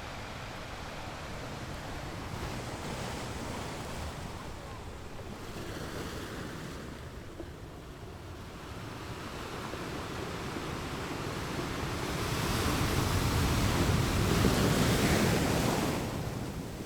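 Sea waves washing onto a rocky beach: a steady wash of surf that swells about two-thirds of the way through as a larger wave breaks, then falls back near the end.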